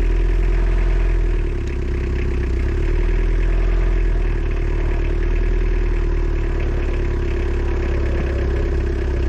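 Isuzu C223 2.2 L diesel engine in a repowered Takeuchi TL130 tracked skid steer running steadily at high idle as the machine is driven back. The machine has to be kept at high idle to move without stalling, which the owner puts down to auxiliary hydraulics stuck on.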